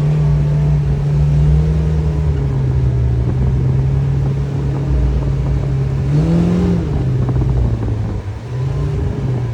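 Kawasaki Ridge XR side-by-side's inline-four engine running under varying throttle over rough ground, heard from inside the cab, with a short rise in revs about six seconds in and a smaller one near the end.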